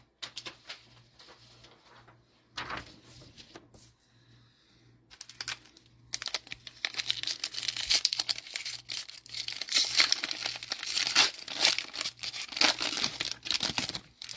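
Shiny plastic wrapper of a Mosaic football trading card pack being torn open and crinkled by hand. Scattered crinkles at first, then dense tearing and crinkling from about five seconds in.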